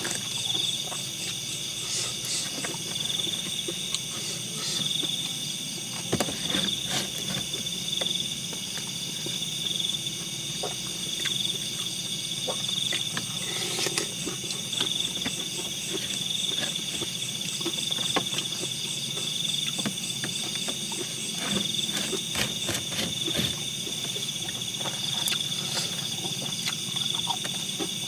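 Insects chirring steadily, a high continuous chorus that swells in a slow regular pulse. Scattered light clicks and knocks run through it.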